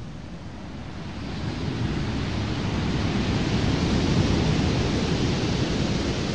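Sea waves breaking against shoreline rocks: a steady wash of surf that grows louder about a second in and then holds.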